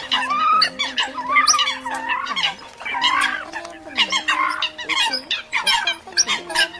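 Eurasian coots calling: a run of squawking calls, one about every second, with shorter sharp notes between them and several birds overlapping.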